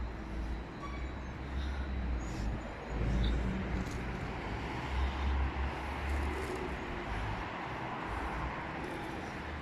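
Road traffic noise, with a vehicle passing about halfway through.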